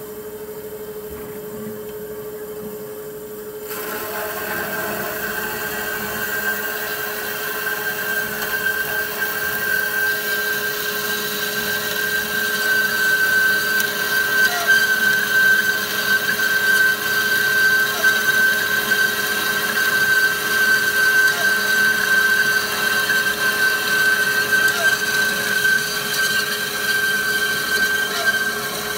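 Forte horizontal bandsaw sawing through a 35 mm steel bar. A steady motor hum is joined about four seconds in by a high steady whine and hiss as the blade cuts into the steel, growing louder as the cut deepens.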